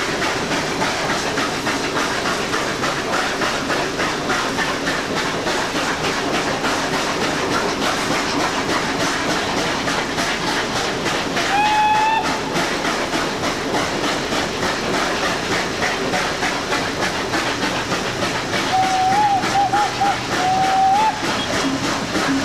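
Steady running noise of a steam-hauled passenger train heard from one of its carriages, wheels on the rails, with a steam locomotive's whistle giving one short blast about halfway through and a quick run of several short toots near the end.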